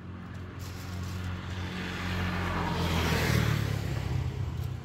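A motor vehicle driving past on the road. Its engine hum and tyre noise grow louder to a peak about three seconds in, then fade.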